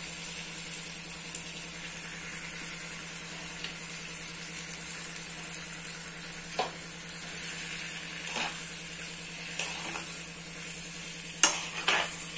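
Onion-tomato masala sizzling steadily in a non-stick frying pan as raw chicken pieces are added and stirred in. Utensils knock against the pan a few times in the second half, and the loudest two knocks come near the end.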